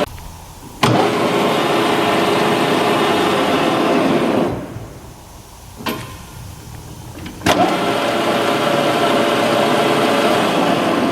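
Harrison M300 centre lathe running, a steady mechanical hum from its motor and headstock gearing. Twice the running noise drops away, the second time winding down over about a second, and each time it comes back suddenly with a sharp click, about a second in and again about seven seconds in.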